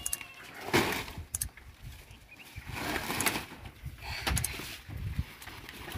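Irregular rustling and knocking of people handling leafy fodder and a sack around livestock pens, a few louder rustles standing out over a low, uneven rumble.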